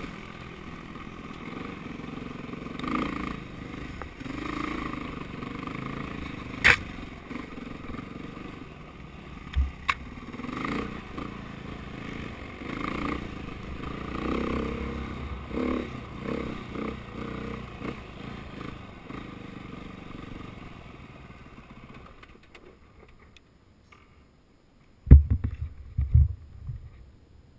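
KTM dirt bike engine running through a ride on a rough forest trail, the revs rising and falling with the throttle, with a couple of sharp clicks from the bike striking rocks. About three-quarters through it dies down as the bike stops, and a few heavy low thumps follow near the end.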